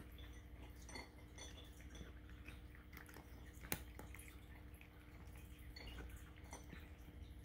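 A cat eating dry kibble: faint, irregular crunches and small clicks, with one sharper click about three and a half seconds in.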